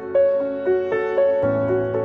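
Soft, somber piano music: a repeating figure of single notes, about four a second, over held lower notes, with a new bass note coming in about one and a half seconds in.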